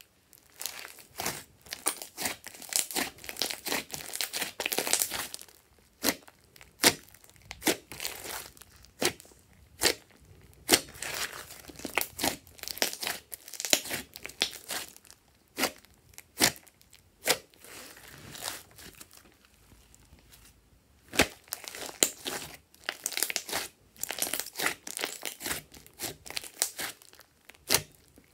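Hands kneading and stretching thick glossy slime: wet, sticky crackling broken by frequent sharp pops and clicks, with a few short pauses between squeezes.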